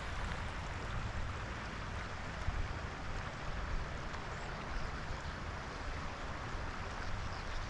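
Steady rush of flowing stream water, with a low, uneven rumble underneath.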